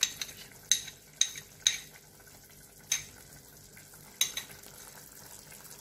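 A pot of drumstick curry simmering gently on low heat, broken by about six sharp metallic clinks of a utensil on cookware.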